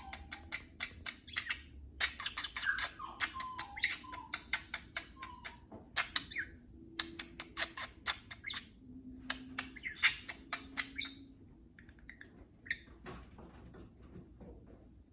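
Pet budgerigars chattering: a fast run of short chirps, clicks and quick falling whistles, thinning out to scattered faint chirps about eleven seconds in.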